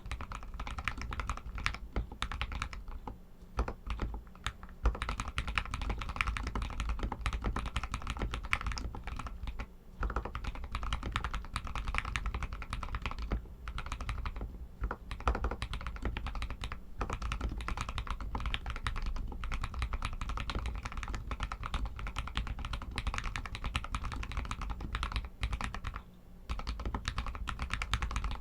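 Royal Kludge RK61 mechanical keyboard with Outemu Red linear switches being typed on steadily: a fast, dense run of key clacks. It breaks off briefly about ten seconds in, again near thirteen and a half seconds, and near twenty-six seconds.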